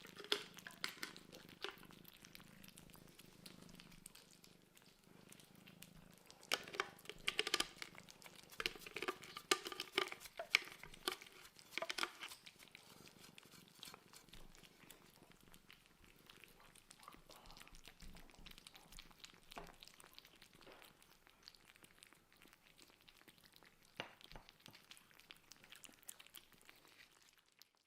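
Kittens purring while they eat, a low steady purr with clusters of small wet chewing and lapping clicks, busiest in the middle stretch.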